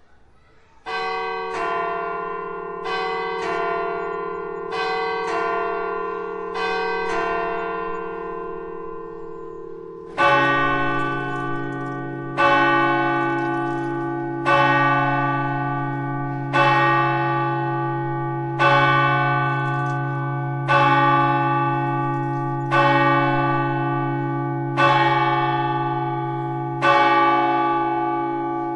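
Church bells striking: a higher bell rings in quick pairs of strokes for the first nine seconds or so, then a deeper, louder bell takes over, struck once about every two seconds, each stroke ringing on into the next.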